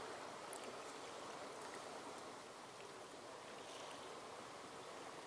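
Small estuary waves lapping against a wooden boat hull, a steady wash of water with a few faint ticks.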